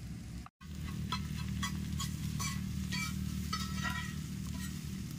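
Anda bhurji (spiced scrambled eggs) sizzling in oil on a tawa while a spatula stirs and scrapes it in repeated short strokes, over a steady low hum. The sound cuts out briefly about half a second in.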